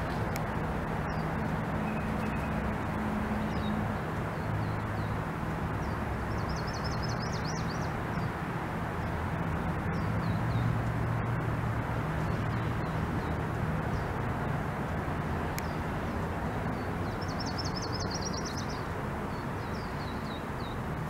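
Steady outdoor background noise with a low hum, while a small bird trills twice, about six seconds in and again near the end, with a few faint chirps between.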